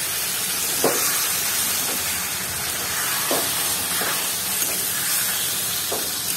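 Raw banana pieces and wet spice masala sizzling and hissing in a hot kadhai just after a splash of water, with a spatula stirring and scraping the pan a handful of times.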